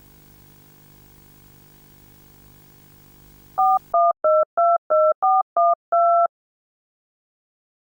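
A faint low hum, then about four seconds in it cuts to a quick run of about nine touch-tone telephone keypad beeps (DTMF dialing tones), each a two-note chord, the last one slightly longer. Dead silence follows.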